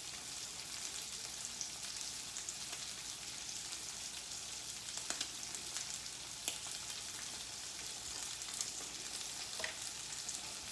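Thin beef steaks frying in a pan on medium-high heat: a steady sizzle with scattered pops and crackles.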